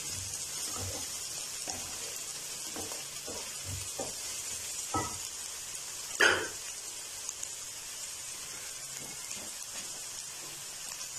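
Diced vegetables sizzling steadily in oil in a metal kadai, with a wooden spatula scraping and stirring through them for the first few seconds and one louder knock about six seconds in; after that only the sizzling goes on.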